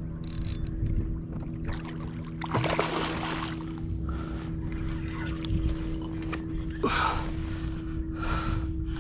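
Short rushes of splashing water around a fishing kayak while a hooked redfish is fought, over a steady low hum.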